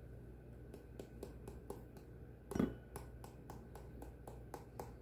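A seasoning shaker jar shaken over a stainless steel bowl: a run of quick, light taps, about four or five a second, with one louder knock a little past halfway.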